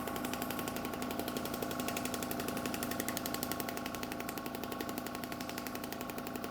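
Shockwave therapy handpiece firing a fast, even train of pulses into the knee: a steady rapid tapping over a steady hum.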